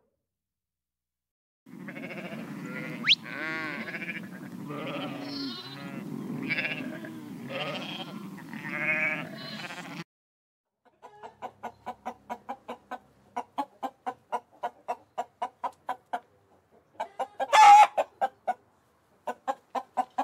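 Animal calls. A dense chorus of overlapping calls over a low rumble runs for about eight seconds. After a short gap comes a long run of quick repeated pulsed calls, about five a second, broken by one loud call near the end.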